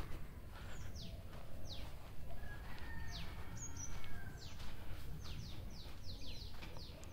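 Birds calling outdoors: many short chirps that each sweep quickly downward in pitch, coming in quick succession in the second half, over a low steady background noise.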